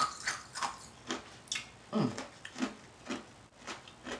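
Sonic nugget ice being crunched between the teeth close to the microphone, in crisp crunches about twice a second. About two seconds in there is a short low falling mouth sound.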